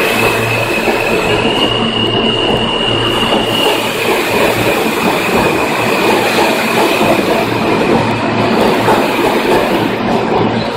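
New York City subway train's stainless-steel cars running past at speed: a loud, steady rumble of wheels on rail. Over it sits a high-pitched tone that steps up in pitch about a second in and drops back near four seconds.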